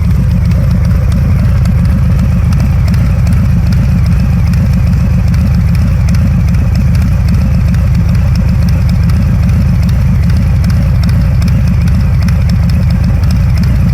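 Harley-Davidson Fat Bob 114's V-twin idling steadily through Jekyll and Hyde exhaust mufflers.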